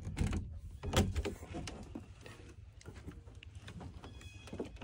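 A pop-up camper's metal door latch is worked and the door pushed open, giving two sharp knocks, the louder about a second in, followed by a few light rattles and clicks.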